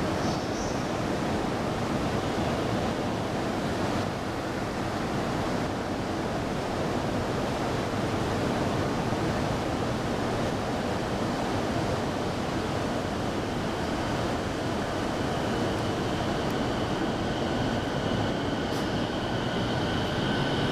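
JR East E217 series electric train moving slowly along a station platform: a steady rumble of train and platform noise. A thin, steady high tone joins in for the last few seconds.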